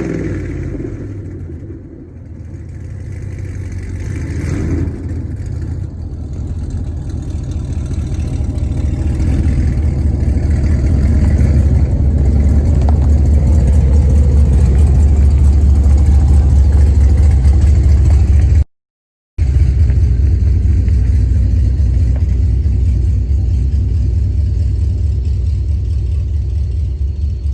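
Hennessey Camaro's V8 with long-tube headers: a light rev dies away in the first two seconds, then the engine idles with a deep, steady exhaust rumble that grows slowly louder. The exhaust has a leak on the passenger side after the headers. The sound cuts out completely for about half a second two-thirds of the way through.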